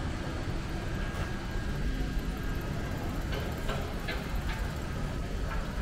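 City street ambience: a steady low rumble of traffic, with a few faint light taps about halfway through.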